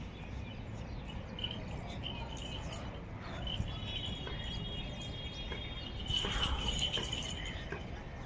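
Birds chirping, with a longer high trill in the middle that grows louder about six seconds in, over a steady low rumble.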